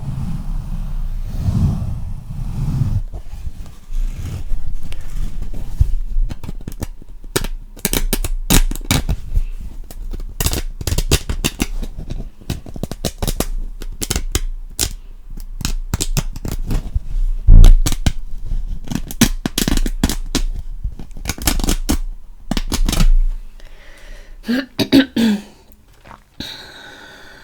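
ASMR trigger sounds: a quick, irregular run of sharp clicks and crackles, with one louder click past the middle, thinning out near the end.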